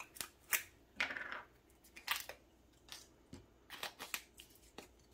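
A seasoning shaker being opened: a series of sharp plastic clicks and crackles as the cap is worked, with a short tearing rustle about a second in as the inner seal is peeled off.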